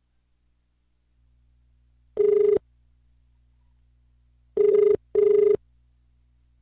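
Telephone ringback tone heard through the phone while the call waits to be answered. There is a single ring about two seconds in, then a double ring a couple of seconds later, each ring a short steady tone over a faint line hum.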